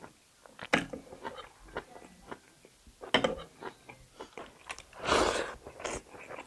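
A person chewing and biting kalij pheasant meat close to the microphone: irregular wet crunches and clicks, with a louder, longer crunching burst about five seconds in.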